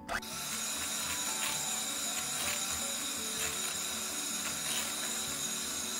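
Electric hand beater switched on at the very start, running steadily as its twin beaters whisk cake batter in a glass bowl.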